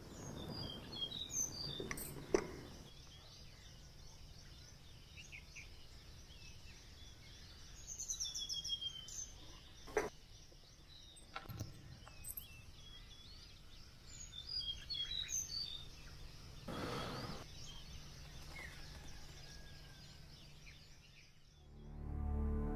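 Faint ambience of small birds chirping now and then, with a few soft clicks. Soft music fades in near the end.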